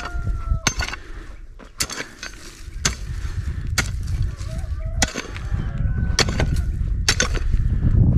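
Hand hoes chopping into hard soil around a young tree's roots, about one sharp blow a second.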